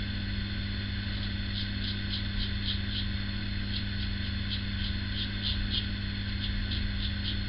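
A PAL Injectomatic injector razor cutting stubble on the upper lip in short strokes, a scratchy scrape a few times a second, over a steady low hum.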